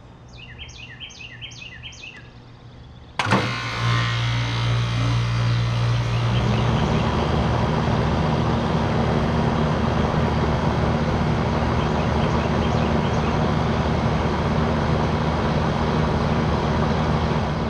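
A bird chirps a few times. Then, about three seconds in, a 1998 York Stellar 1.5-ton R22 central air conditioner condensing unit kicks on abruptly with a loud hum, and a few seconds later its condenser fan joins with a steady whoosh. The unit then runs evenly at full speed; the owner suspects the fan may still be turning in reverse.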